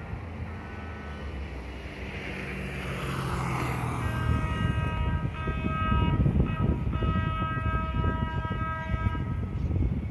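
A light-rail trolley's horn sounds a chord in several blasts from about four seconds in, the last one the longest, over the low rumble of the trolley rolling through the crossing, which grows louder from about two seconds in.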